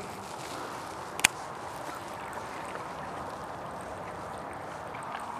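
Water lapping and gurgling steadily against a rocky riverbank, with one sharp click a little over a second in.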